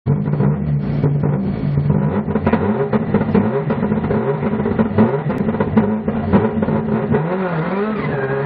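Subaru Impreza GDB rally car's turbocharged flat-four engine held at the start line and revved up and down over and over, with frequent sharp pops, then pulling away near the end.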